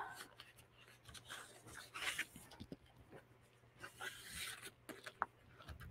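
Faint, intermittent rustling of paper as a hand leafs through a stack of white cardstock scraps, with a light click near the end.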